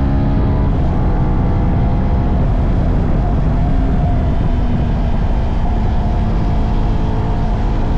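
2022 CFMoto 300NK's single-cylinder engine running at a steady idle through its stock exhaust.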